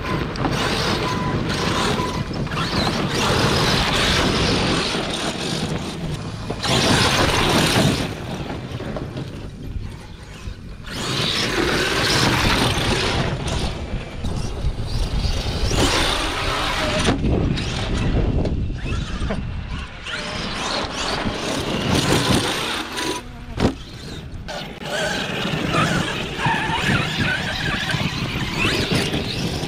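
Arrma Kraton 8S brushless electric RC monster truck driving hard over loose dirt and rock, its motor and tyres rising and falling in repeated surges as it speeds up, slows and climbs.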